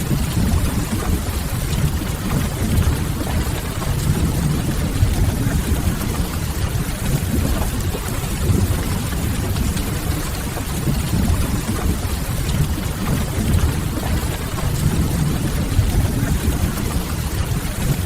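Steady rain ambience, an even hiss of rain with a low rumble under it, from a mixed rain-and-fireplace ambience track.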